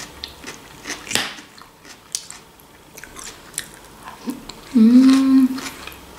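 Crunching and chewing of a forkful of fresh vegetable salad (cucumber, bell pepper, onion and lettuce), a string of short crisp crunches. A short hummed voice note about five seconds in is the loudest sound.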